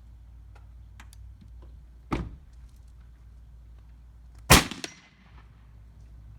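.457 AirForce Texan big-bore air rifle firing once, a loud sharp crack about four and a half seconds in, with a smaller crack about a third of a second after it. About two seconds in there is a lighter sharp knock.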